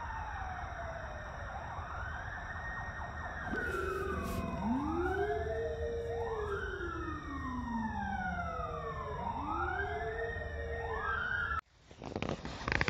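Police sirens wailing, several slow rising-and-falling sweeps overlapping at different pitches. They cut off suddenly near the end.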